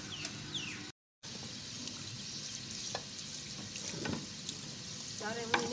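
Water sloshing and splashing as terracotta clay dishes are moved about by hand in a steel basin of water to soak, with a light knock or two of clay against clay.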